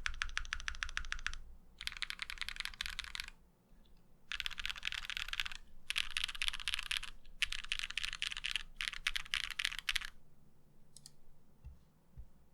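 Typing on a mechanical keyboard with GMK Cherry profile doubleshot ABS keycaps: bursts of rapid key clacks, about six runs with short pauses between them, then a few scattered keystrokes near the end.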